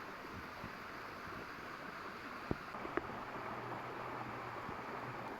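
Faint, steady outdoor background noise, with two light clicks about half a second apart a little past the middle.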